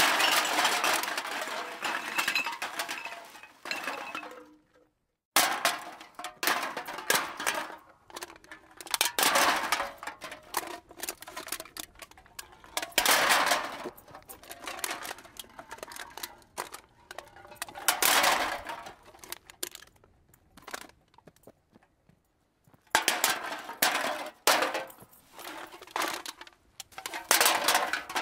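A string of separate impact sound effects. First comes a clattering crash that dies away over about four seconds. After a short silence there is a run of sharp hits and clinks in clusters, some of them ringing briefly, with a breaking-glass or crockery character.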